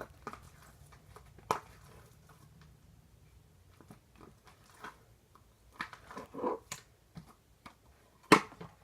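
Foam-bead slime being squished and poked by hand: scattered soft crackles and sticky pops, with a sharper pop near the end.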